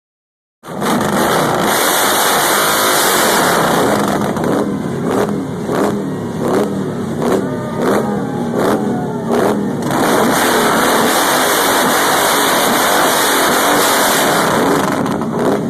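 A loud motor vehicle engine held at high revs, then blipped up and down in quick repeated revs for several seconds, then held at high revs again.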